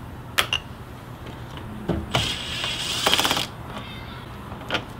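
Cordless impact driver with a 7/32 socket running for about a second and a half, backing out a small bolt, with a rapid rattling rhythm near the end of the run. A few light clicks of the tool and socket come before and after it.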